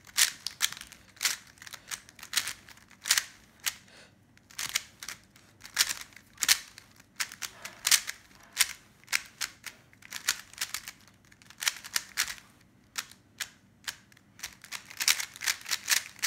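GAN Air SM 3x3 speedcube being turned fast in a speed solve: rapid plastic clacking of the layers, in bursts of quick turns with short pauses between.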